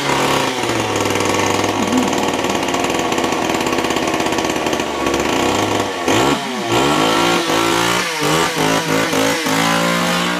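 Gas chainsaw engine running steadily, then revved up and down several times in quick succession over the last few seconds.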